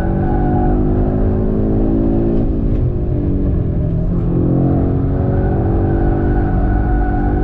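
Audi RS3's turbocharged five-cylinder engine at full throttle on track, the pitch climbing through the revs. The pitch drops sharply at a gearchange about two and a half seconds in, then climbs again in the next gear.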